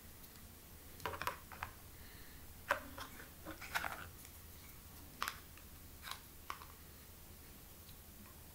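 Handling noises from a small plastic McDonald's toy and its packaging: a scatter of sharp clicks and short rustles, bunched in the first two-thirds, over a low room hum.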